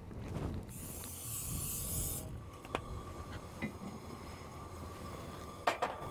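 Aerosol cooking spray can hissing for about a second and a half, then a few sharp clicks and taps.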